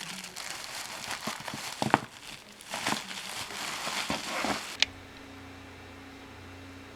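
Packaging crinkling and rustling in irregular handling bursts with small clicks. Near the end, a sharp click is followed by a steady low electrical hum.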